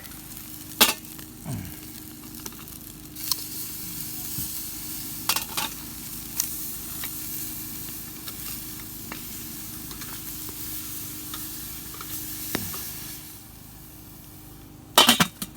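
A pork chop sizzling as it cooks over a campfire, broken by a few sharp knocks. The sizzle drops away near the end.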